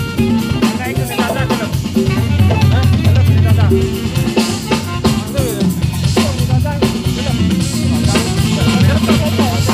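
A jazz band playing live: drum kit and congas over a bass line, with other pitched instruments on top, in a steady groove.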